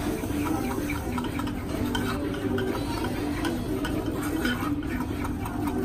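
A metal spoon stirring and scraping a very cold, liquid lychee-and-champagne dessert in a bowl, with light clicks of spoon on bowl, over a steady low hum.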